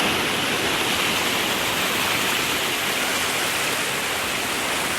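Waterfall splashing: a steady, unbroken rush of falling water.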